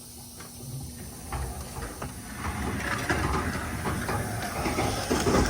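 Manual pallet jack moving a loaded pallet: wheels rumbling over the floor with rattling and clicking, growing louder from about a second in.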